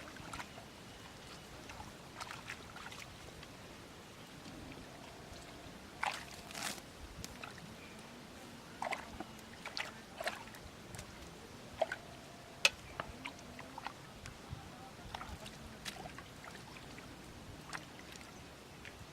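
Water sloshing and trickling, broken by scattered sharp knocks and clicks, the loudest about twelve and a half seconds in.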